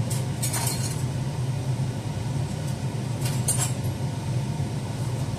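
Metal spoon clinking and scraping against a ceramic salad bowl as a dressed salad is stirred, a few short clinks about half a second in and again past three seconds, over a steady low hum.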